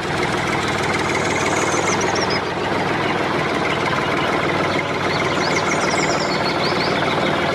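Tractor engine running steadily with a knocking idle, a dubbed sound effect standing in for the toy tractor, with faint bird chirps over it.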